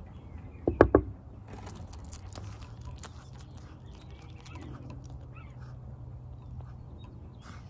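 Bearded dragon chewing a superworm: a quick cluster of sharp, loud crunching clicks about a second in, then fainter scattered clicks as it keeps chewing.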